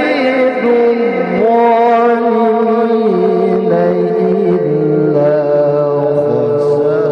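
Male qari reciting the Quran in melodic mujawwad style into a handheld microphone: one long, unbroken phrase of held notes that step down in pitch as it goes.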